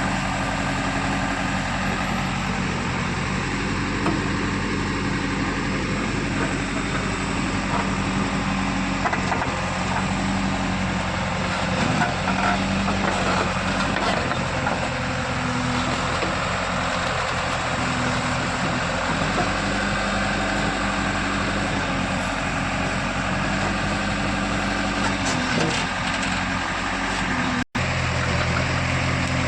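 JCB 3DX backhoe loader's diesel engine running steadily, a little louder for a few seconds about twelve seconds in. The sound cuts out for an instant near the end.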